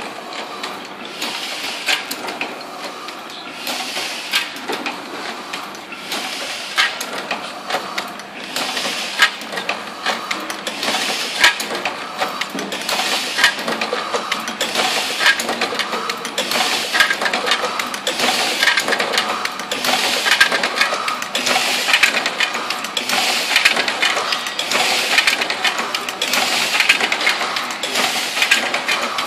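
Heidelberg GTP (Windmill) platen press running, its mechanism clattering and clicking in a steady cycle with a louder surge about every second and a half.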